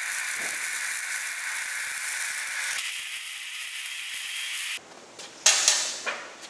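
A power tool running steadily with an even whirring hiss, cutting off suddenly about five seconds in, followed by a few sharp clacks.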